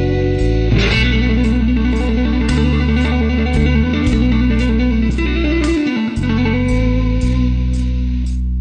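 Electronic instrumental music with a guitar-like plucked line over sustained bass notes and a steady ticking beat; a new phrase comes in about a second in.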